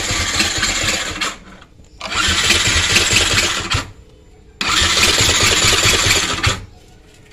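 Yamaha Vixion 150cc single-cylinder fuel-injected engine being cranked on its electric starter three times, each burst stopping without the engine catching and running: the bike won't start.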